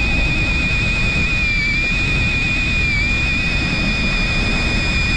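A steady high-pitched motor whine over a low rumble, dipping slightly in pitch twice.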